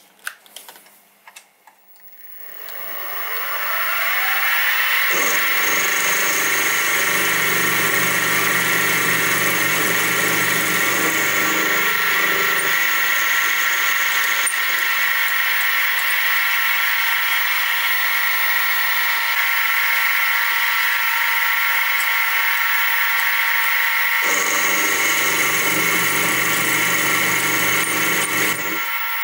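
A few light clicks, then a Sieg SX2P mini-mill's spindle motor spins up over about two seconds and runs with a steady high whine. Twice a rougher, lower sound comes and goes on top of it as the end mill cuts the workpiece.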